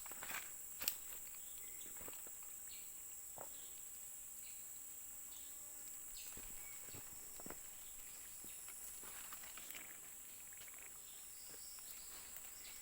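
Steady high-pitched drone of insects in vegetation, with scattered faint clicks and rustles and a sharper click about a second in.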